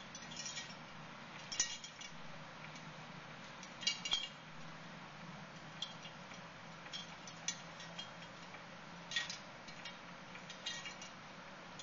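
Small hard objects clinking and tapping as they are handled and moved about on a table, in a dozen or so scattered light clicks, over a faint steady hum.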